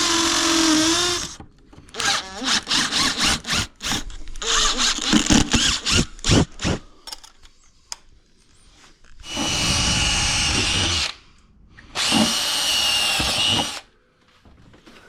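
Power drill boring holes for Tapcon concrete screws through a door-jamb security plate into the masonry, in three runs of a second or two each with a motor whine. Between the first and second runs there is a few-second stretch of irregular rattling knocks.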